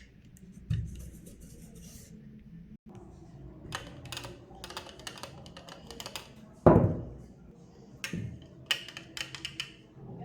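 Small plastic toy parts and packaging being handled, making scattered clicks, taps and crinkles, with one louder knock about two-thirds of the way through.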